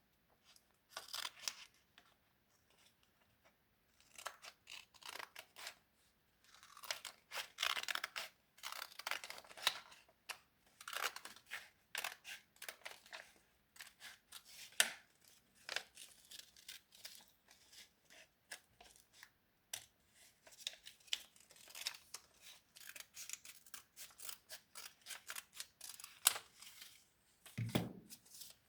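Craft materials being worked by hand: a long run of short, irregular rasping strokes, like paper or tape being cut, torn and rubbed, with a low thud near the end.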